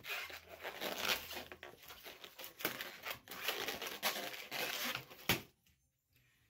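Latex 260 modelling balloon squeaking and rubbing as it is bent and twisted into a circle, then bursting with one sharp pop about five seconds in.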